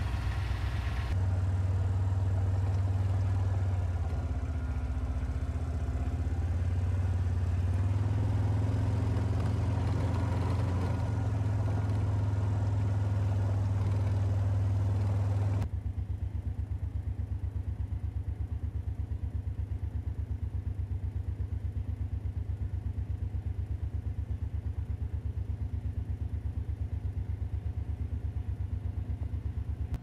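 Kioti compact tractor's engine running steadily with a low, even throb, close by at first; about halfway through it becomes quieter as the tractor drives up a gravel drive toward the listener.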